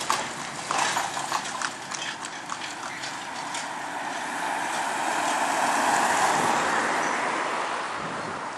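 Horse's hooves clip-clopping on a paved road, fading as the horse and cart move away; then a car passes, its noise swelling to a peak about six seconds in and dying away.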